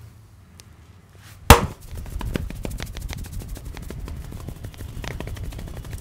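A single loud sharp crack about a second and a half in, fitting a neck crack as the barber twists the head held between his hands, then a fast run of hand strikes and taps on the head and scalp, several a second.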